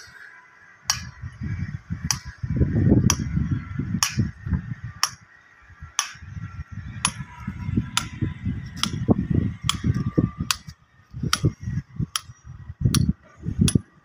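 Sharp clicks repeating roughly one to two times a second, over a low, gusty rumble that swells and drops away.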